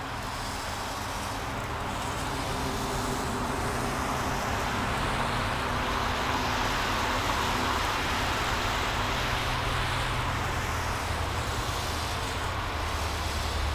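Three EMD diesel locomotives approaching, their engine rumble and rail noise growing gradually louder, with the low rumble strongest near the end.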